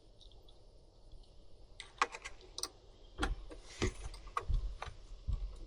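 Hands handling small parts and tools on a leaf blower during repair. About two seconds in, irregular small clicks start, mixed with a few duller knocks.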